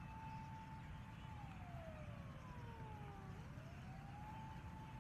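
A wailing siren: one tone rises, holds high, then slides slowly down before rising again about three and a half seconds later, over a steady low rumble.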